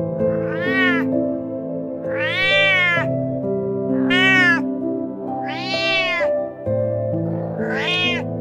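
Domestic cat meowing five times, every second or two, each meow rising then falling in pitch, over steady background music.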